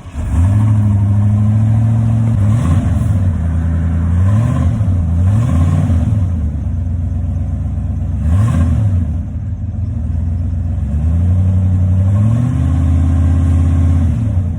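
1993 Ford F-150's engine catching on a cold start, fired by bridging the faulty starter with a wrench, then revved up and down about five times before settling.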